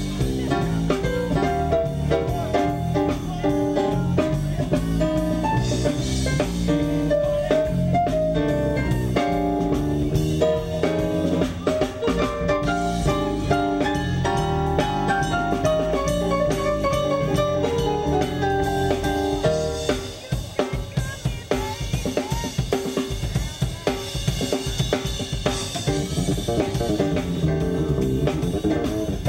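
Live blues band playing: keyboard, electric guitar and drum kit. About twenty seconds in, the bass line drops away and the drums come forward with sharp snare and rimshot hits, before the fuller band sound returns near the end.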